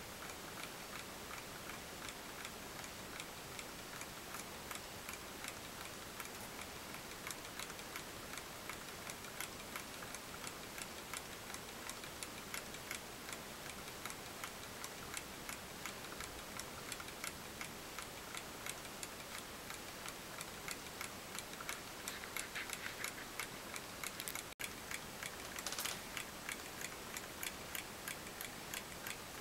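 Small brass model Stirling hot-air engine running, its mechanism making a steady, even ticking over a faint hiss.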